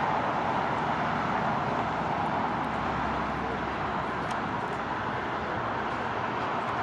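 Steady rushing roar of a jet airliner's engines, easing off slowly.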